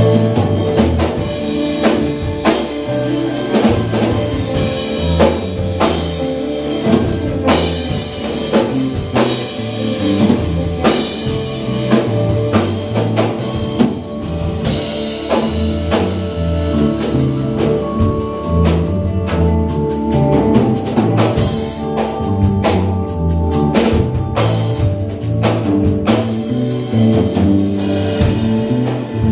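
A live band playing: drum kit keeping a steady beat, with electric guitar, bass guitar and keyboard.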